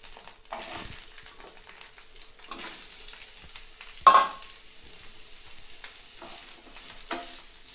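Potato sticks frying in hot oil in a nonstick pan: a steady sizzle, with a wooden spatula stirring and scraping them around. A sharp clack stands out about four seconds in.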